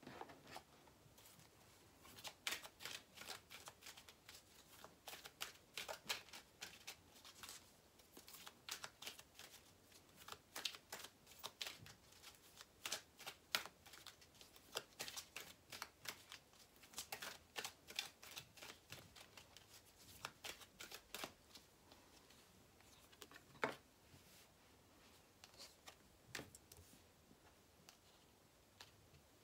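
A deck of tarot cards being shuffled by hand, quietly: a run of quick card clicks and flicks that thins out after about twenty seconds, with one louder snap a few seconds later.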